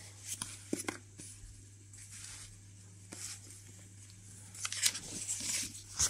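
Paper rustling as an old thin paper booklet is handled and opened: a few light taps and clicks in the first second, then louder, denser page rustling near the end as the cover is turned. A faint steady low hum runs underneath.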